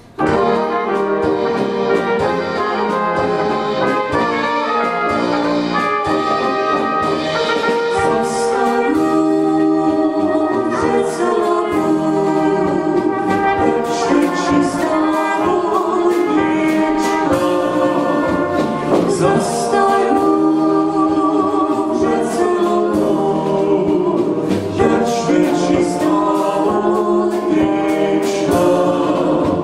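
A small Czech-style brass band of flugelhorns, tenor horns, tuba and drum kit playing a folk tune together, with a man and a woman singing along. The band strikes up abruptly at the start.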